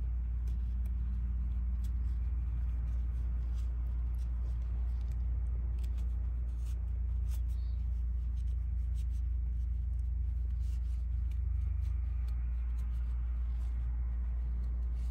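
Steady low hum throughout, with faint scattered clicks and rustles from small fabric pieces being turned right side out with a metal turning tool.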